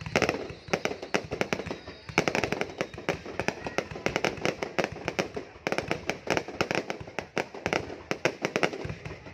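Fireworks going off in quick succession: a dense run of sharp bangs and crackling pops, several a second, with brief lulls about two seconds in and again near the middle.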